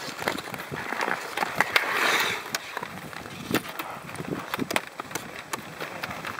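Skate blades scraping over natural lake ice, with sharp clicks and taps scattered throughout and a louder scraping swish about two seconds in.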